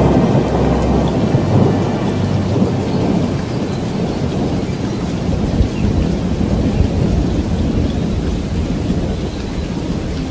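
Thunder rumbling and dying away over steady rain, the whole storm slowly growing quieter.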